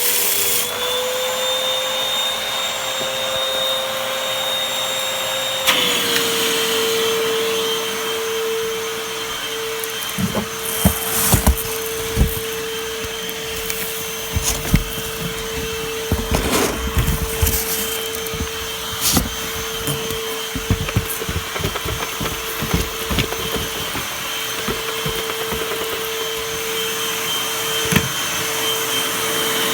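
Vacuum cleaner motor running with a steady hum that dips slightly in pitch about six seconds in. From about ten seconds in, irregular clicks and rattles of dirt and grit being sucked up come through over the hum.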